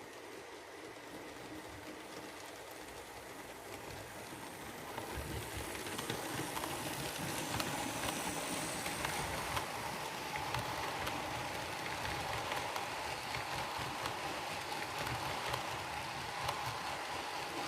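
Model steam locomotive with a DCC sound decoder running on a layout: decoder steam sound and the mechanical running of the model on track, with scattered sharp clicks. It grows louder about five seconds in as the locomotive comes closer.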